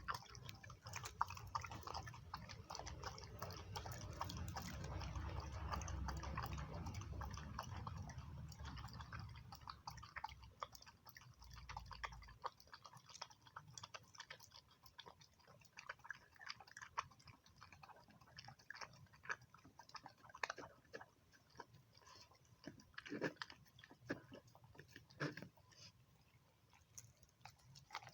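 A dog chewing and biting its food, with many small clicks from its mouth and teeth. A low rumble runs under the first twelve seconds or so.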